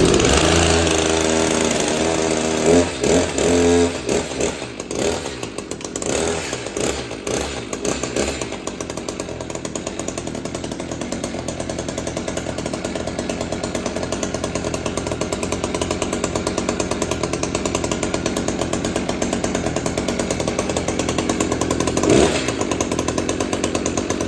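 Echo CS-590 chainsaw's two-stroke engine running just after its first pull-start: uneven and surging for the first few seconds, then settling into a steady idle by about eight seconds in, with one brief louder burst near the end.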